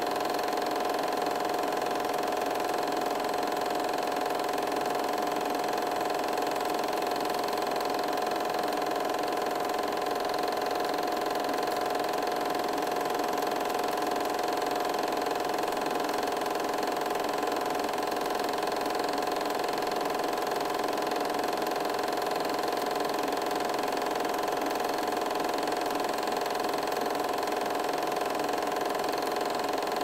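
8mm film projector running: a steady mechanical whir with a constant hum.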